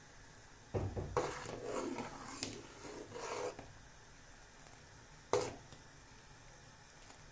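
A spoon stirring and scraping a thick, linseed-thickened mixture in a cooking pot for about three seconds, followed by a single sharp knock a couple of seconds later.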